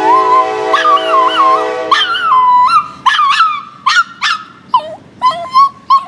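Small dog howling along with a passing train's horn, which sounds as a steady chord until about halfway through. Then the horn stops and the dog carries on in short, broken howls.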